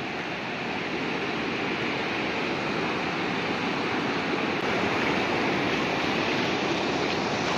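The Damodar River in heavy flood: fast, turbulent floodwater rushing in a steady, even noise that slowly grows a little louder.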